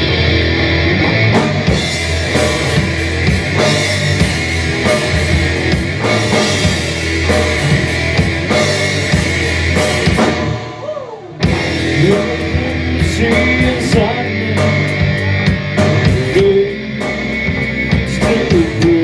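A live heavy rock band with distorted electric guitar, bass guitar and drum kit playing loudly. About ten seconds in, the band drops out for roughly a second, then comes back in all at once.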